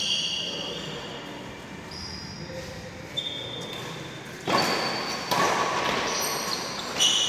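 Sports shoes squeaking on an indoor badminton court floor: several short, high-pitched squeaks. A couple of louder bursts of noise come about two-thirds of the way through.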